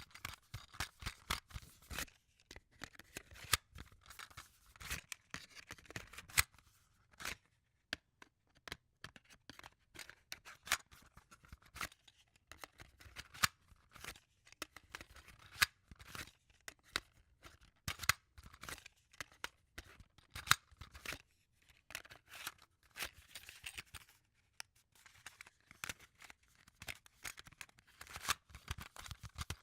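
A MiniDisc and its plastic case being handled: many small, irregular plastic clicks and snaps, with short scraping and rustling sounds in between.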